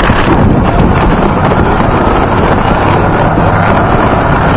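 Wind buffeting the microphone hard, with an off-road race truck's engine running beneath it.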